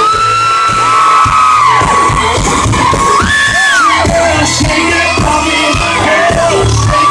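Live country music from an amplified band, loud, with a steady pulsing bass and held melody notes that bend in pitch, and whoops from the crowd.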